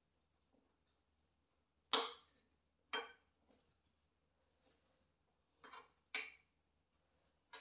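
Cutlery clinking against dinner plates during a meal: about half a dozen short, sharp clinks at irregular intervals, the loudest about two seconds in.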